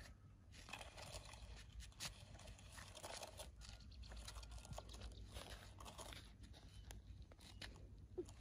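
Faint, irregular crunching of footsteps on dry grass and dirt.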